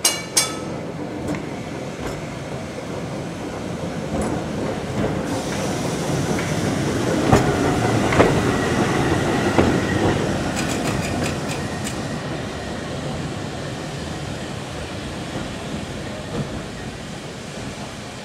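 Double-deck electric tram passing on street track. Its running rumble builds to a peak about eight seconds in, with a run of sharp clicks from the wheels on the rails and a thin high whine, then fades as it moves away.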